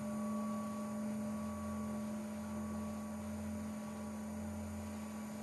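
A steady low electrical hum with faint background hiss.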